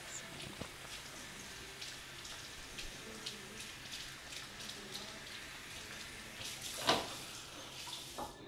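Water running from a tap, with scattered light clicks and one louder knock about seven seconds in.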